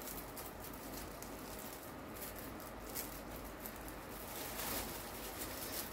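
Faint rustling and crackling of plastic cling film with string rubbing over it, as hands tie string around a film-wrapped sausage roll.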